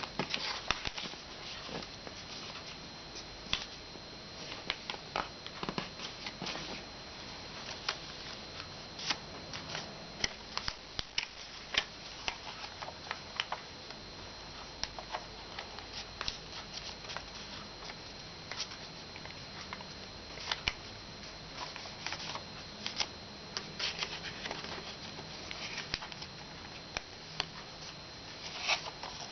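Sheet of paper being handled and folded by hand: irregular crinkles, taps and sharp creasing clicks, with a faint steady high whine underneath.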